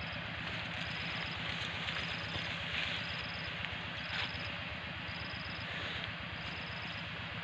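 Steady outdoor background hiss with a low hum underneath and a short high-pitched chirp repeating about once a second.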